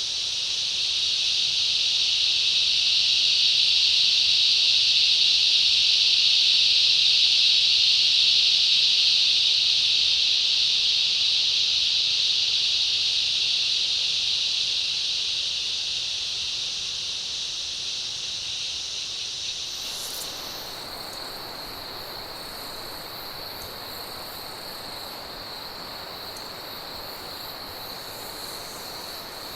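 Rainforest cicada chorus: a loud, dense, steady buzzing that swells over the first few seconds, then slowly fades. About twenty seconds in it gives way to quieter insects, a thin steady whine with a fast, high pulsing trill above it.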